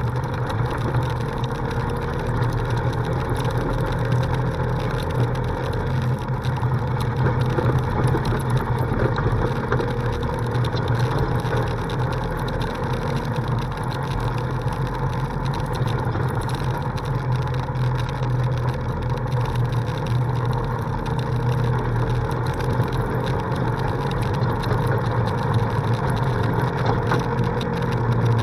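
Polaris RZR side-by-side's engine running steadily under way, with a constant low drone and the rumble and crunch of tyres on a dirt road.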